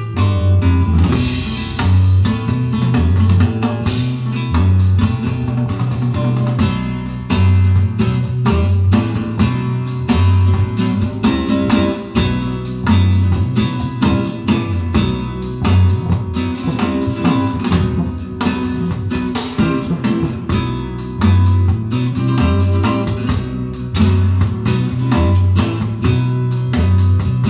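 Guitar-led music with a strong, repeating bass line, played back through Dali Ikon 5 mk2 loudspeakers.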